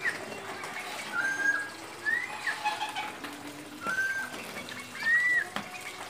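Friarbird calling: a run of short, loud whistled phrases, each bending up and down in pitch, about one a second.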